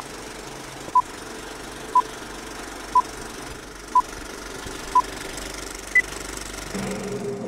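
Electronic countdown beeps: six short, identical beeps one second apart, then a single higher-pitched beep a second later, over a steady hiss. Music starts in near the end.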